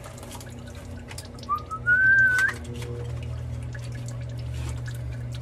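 A single whistle about a second and a half in, lasting about a second: it rises, holds one note, then sweeps up at the end. Under it runs a steady low hum.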